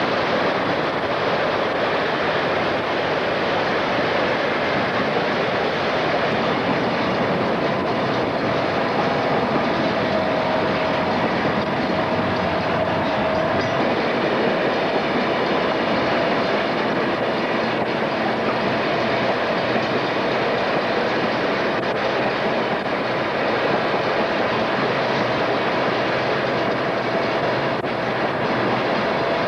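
Freight train cars rolling past close by: a steady rumble with the wheels clattering on the rails.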